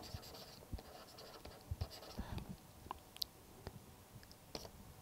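Faint pen strokes while writing: irregular small taps and short scratches of a pen nib on a writing surface.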